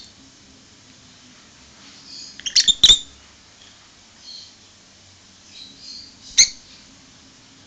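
Lutino peach-faced lovebird giving short, high chirps and squeaks while feeding, with a quick cluster of loud sharp clicks about two and a half seconds in and another single click about six seconds in.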